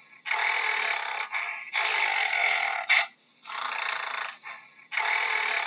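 Gorilla breathing heavily: long, noisy breaths, one about every second and a half, with short pauses between.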